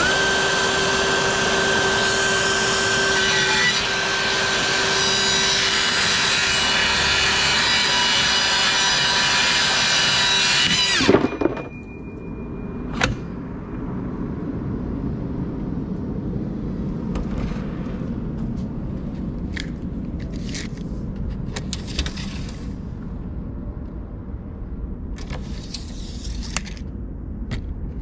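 DeWalt 60V Max cordless track saw cutting through a T1-11 plywood siding panel: a steady, loud whine for about eleven seconds, then the saw is switched off and spins down. A sharp click follows a couple of seconds later, then a few brief scraping sounds.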